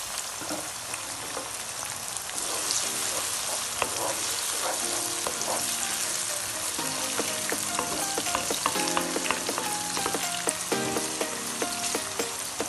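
Onions, garlic, tomatoes and green chillies sizzling in hot oil in a karahi, stirred and scraped with a wooden spoon.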